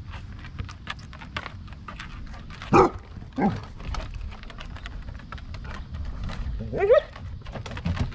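Basset hounds barking while they play rough: a loud bark about three seconds in, a shorter falling one just after, and a rising bark about seven seconds in.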